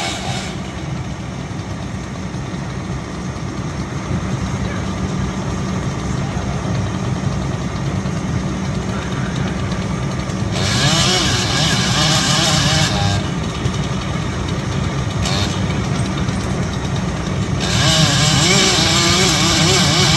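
An engine runs steadily, and a chainsaw cuts in over it twice, about ten seconds in and again near the end, its pitch wavering as it works.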